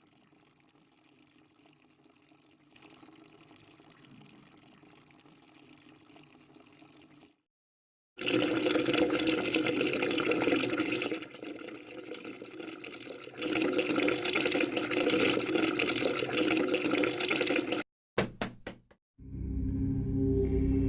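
Running water, like a tap running into a sink: faint at first, then much louder from about eight seconds in, cutting off suddenly about eighteen seconds in. A few short clicks follow, and a low gong-like tone starts near the end.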